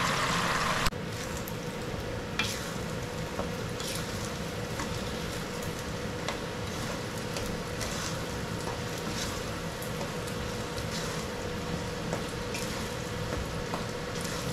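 Coconut milk cooking down with sugar in a pan, its separated oil frying the curds into latik: a steady sizzle with occasional light clicks of stirring. The sizzle is louder for about the first second, then settles lower.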